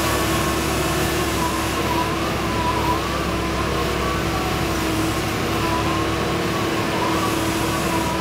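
Heavy construction equipment running steadily: an engine drone with a constant hum and a higher whine that wavers slowly up and down in pitch.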